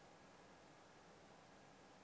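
Near silence: faint steady room tone and hiss.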